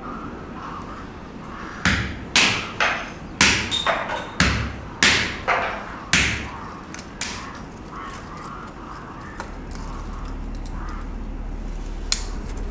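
Hammer blows on steel at an anvil: about ten sharp strikes in quick, uneven succession, each ringing briefly. A steady low hum starts a few seconds after the blows stop.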